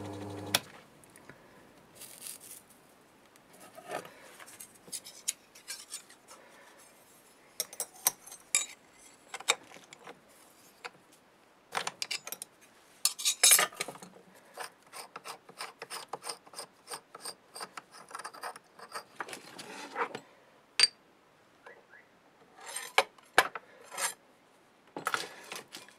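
A small metal lathe's motor hum stops about half a second in. Then come irregular metal-on-metal scraping, rubbing and clicking as the workholder is loosened with a wrench and a turned metal ball is taken out of it by hand, with louder bursts about halfway through and near the end.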